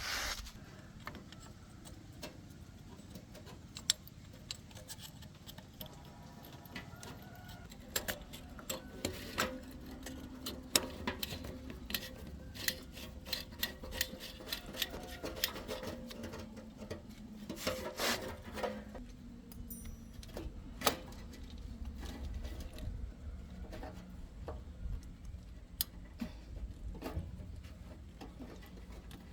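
Hand tools working on metal: irregular clicks and light knocks, some sharper strikes among them, over a low steady hum.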